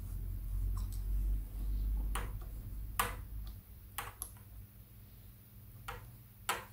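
A handful of light, sharp metal clicks and taps at irregular intervals as the screwdriver, pull rod and nut of a Triumph Trident T160's clutch operating mechanism are handled. Under them is a low rumble that dies away about three seconds in.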